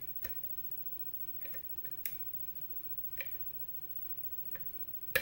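Lock pick working the pin stacks of a Sargent pin-tumbler lock, giving a few separate sharp clicks, the loudest near the end. This is the sound of pins being set under tension; the picker takes one of them for pin 4 setting.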